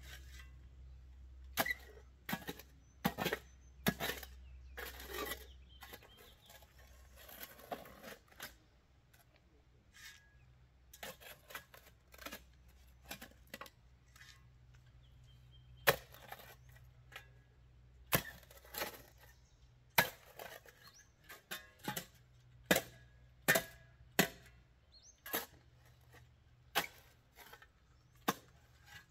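Digging tool working a planting hole in rocky soil: irregular sharp strikes into dirt and stones, roughly one every second, with a few longer scraping scoops between them.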